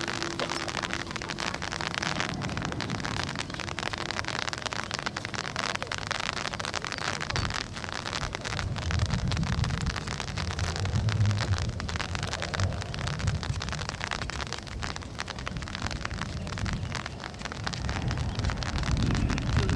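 Wind buffeting the microphone: a steady hiss with fine crackles, and gusty low rumbles that swell from about eight to twelve seconds in and again near the end.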